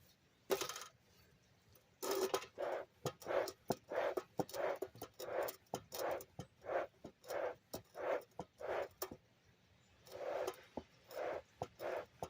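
Bee smoker bellows pumped over and over, puffing about two to three times a second, with a short pause about three-quarters of the way through. The smoker is struggling to stay lit, which the beekeeper blames on wet charcoal.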